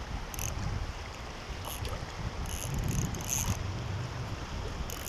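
A hooked carp thrashing at the water's surface on a light line, splashing. There are brief splashes about half a second in and near two seconds, then a longer bout of splashing around three seconds in.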